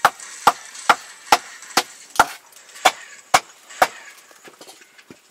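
A blade chopping on wood: nine sharp, evenly spaced strikes, about two a second, that stop about four seconds in, followed by a few light taps.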